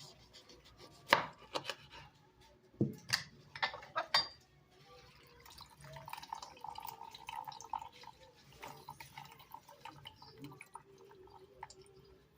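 Dishes and utensils being handled: a few sharp knocks and clinks in the first four seconds, the loudest about a second in, then a stretch of softer, busier clattering.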